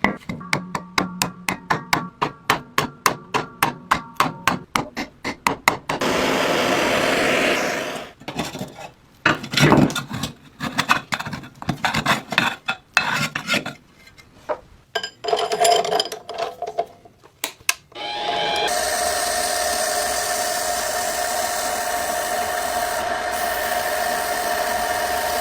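Hand-tool work on a workpiece: rapid tapping at about five strokes a second, then rasping and scraping strokes. About two-thirds of the way in, a small power tool starts and runs steadily.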